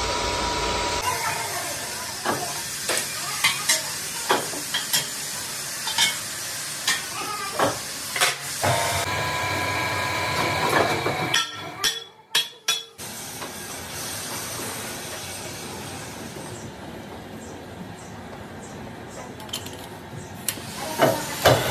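Lathe turning a steel truck wheel rim: a steady hiss of the cutting tool on the spinning rim, with frequent sharp metallic clicks through the first half. The sound breaks off briefly around the middle, then the hiss continues with fewer clicks, and a few metal knocks come near the end.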